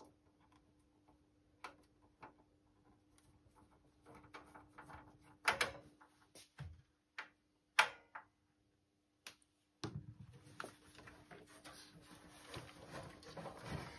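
Handling noise from a metal-cased stereo receiver: scattered light clicks and a few sharp knocks, then, from about ten seconds in, continuous scraping and rubbing as the unit is tipped over from standing on its side. A faint steady hum runs underneath.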